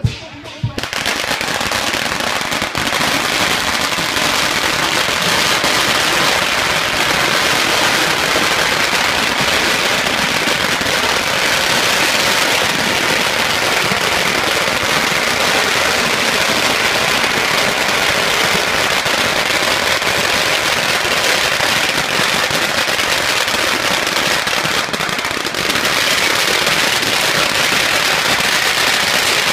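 Many long strings of red firecrackers going off at once in a loud, continuous rapid crackle that begins about half a second in, easing briefly near the end.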